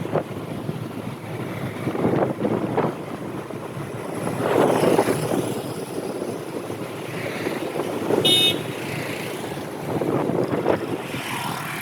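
Motorbike ride on a windy road: engine and traffic noise with gusty wind noise that swells and fades several times. A short horn beep sounds about eight seconds in.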